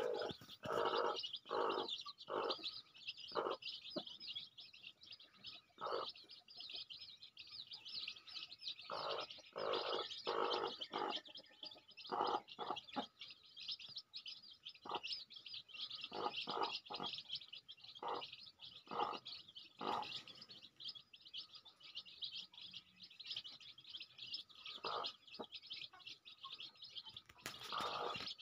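A large brood of native country-chicken chicks peeping continuously in a dense high chorus, with the mother hen's short, low clucks breaking in every second or so at irregular intervals.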